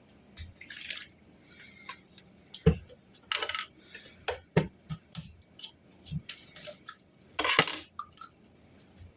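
Kitchen utensils and cookware clinking and clattering: irregular short knocks, clicks and brief scrapes, with two sharper knocks near the middle and a longer scraping clatter about three-quarters of the way through.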